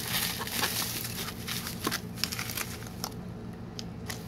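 Bubble wrap crinkling as it is pulled open by hand, then plastic anti-static bags rustling, with many small crackles. The crackling thins out to a few scattered ticks about three seconds in.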